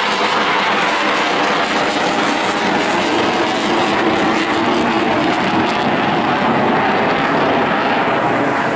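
Eurofighter Typhoon's twin Eurojet EJ200 jet engines, a loud, steady roar of jet noise during a flying display; the higher hiss thins out over the last few seconds.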